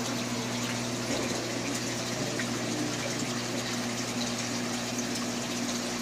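Home aquarium's air pump and filter running: a steady bubbling and splashing of water over a steady low electric hum.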